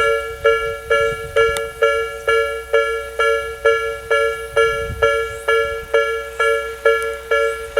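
Electronic level-crossing warning bell of the Tobu 'Nikko Line' type (Tobu sound B), ringing at a railway crossing. It repeats a bright two-tone chime evenly, about two strokes a second, each stroke fading fast.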